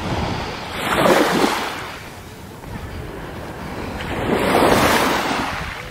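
Small waves washing up onto a sandy, pebbly beach: two swells of surf hiss, one about a second in and another near the end, each rising and dying away.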